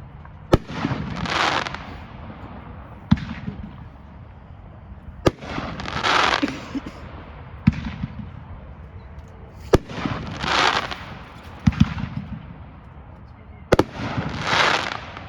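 Consumer firework cake firing a shot about every two seconds, each a sharp report. Several shots are followed by about a second of crackling hiss as the effect breaks.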